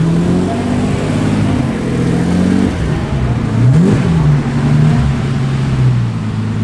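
Lamborghini Diablo's V12 engine running as the car pulls slowly away, with a short rev blip about four seconds in.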